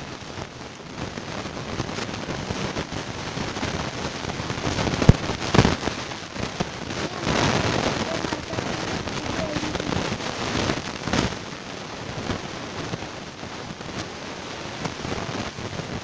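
Close crackling and rustling handling noise, dense with small clicks, with a few sharper knocks about five seconds in and again near eleven seconds.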